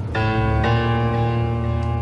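Background score music: sustained chords, with new chords coming in twice in the first second, over a steady low bass.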